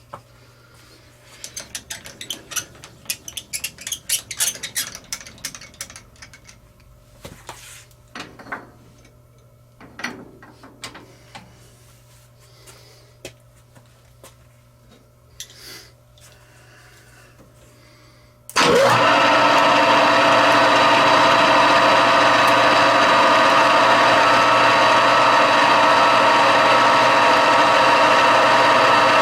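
Light clicks and scrapes of metal being handled over a low machine hum. About eighteen seconds in, a shop machine comes on abruptly and runs loud and steady.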